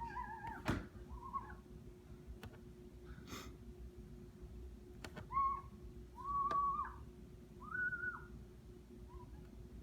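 A dog whining in a series of short high calls, with the longest one near the middle and a few faint knocks among them.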